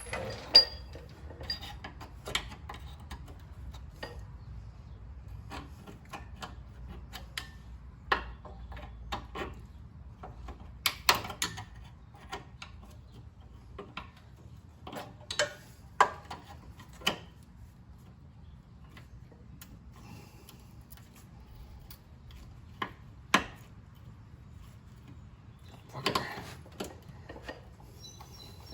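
Irregular metallic clicks, clinks and knocks of hand tools working at a car's front brake hose fitting and its retaining clip, coming in short clusters with gaps between them.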